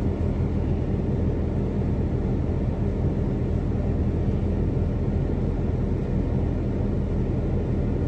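Steady low rumble of a semi truck's diesel engine idling, heard from inside the cab.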